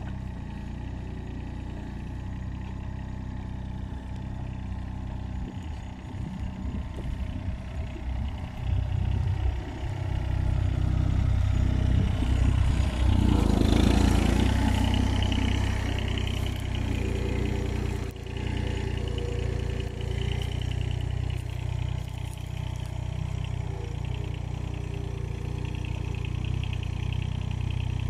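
Ammann Yanmar mini excavator's diesel engine running steadily as it digs, getting louder for several seconds about halfway through, with a brief rushing noise at the loudest point.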